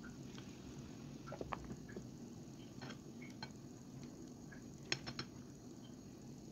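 Faint, scattered clicks and light taps of a spatula against a glass bowl as coleslaw is scooped into a container, in a few short clusters over a low steady hum.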